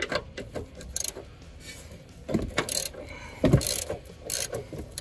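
Hand ratchet wrench clicking in several short bursts as a bolt on the front suspension is worked.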